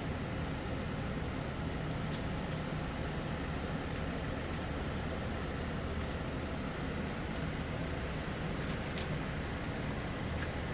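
Steady machine noise: a low, even hum with a hiss above it, and a few faint ticks about nine seconds in.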